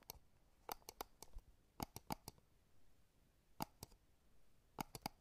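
A series of short, sharp clicks at irregular intervals, some in quick pairs or threes, over an otherwise very quiet background.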